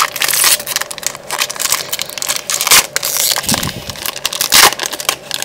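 Foil Pokémon trading card booster pack wrapper being torn open and crinkled: an irregular run of crackles and rustles, with several louder crinkles.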